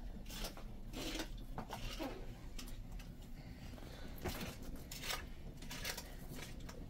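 A small wood fire crackling in a stone hearth: scattered soft clicks and rustles about once a second over a low steady rumble.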